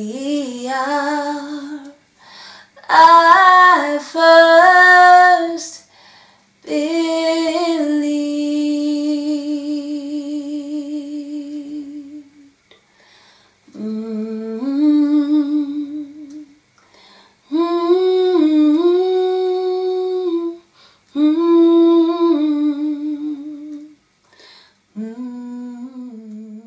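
A woman singing unaccompanied, humming a slow melody in phrases of a few seconds each with vibrato. One note about a third of the way in is held for about five seconds.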